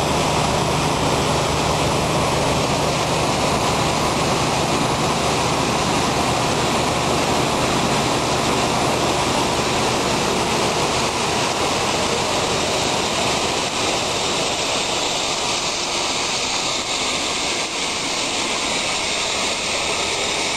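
Maize dryer's big fans running, a steady loud rushing, with a low machine hum under it that fades out about halfway through.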